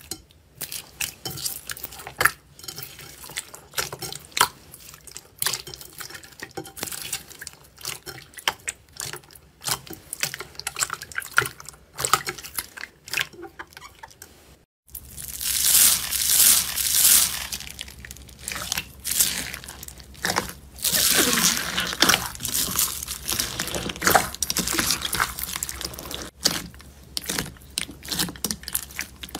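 Hands squishing and pressing sticky slime mixed with tiny foam beads: a continuous patter of wet, sticky clicks and crackles. After a cut about halfway through it turns louder and crisper.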